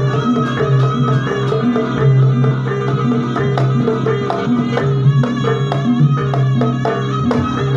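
Traditional Javanese jaranan music for a Pegon dance: drums striking a steady, repeating beat under a low drone and a melody line.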